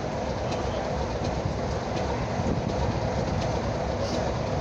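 BR Class 33 diesel locomotive D6575 standing at the platform, its Sulzer eight-cylinder engine idling steadily.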